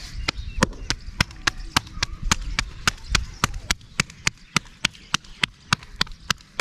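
Bare palms slapping a ball of wheat roti dough flat, hand to hand, in an even rhythm of about three sharp slaps a second.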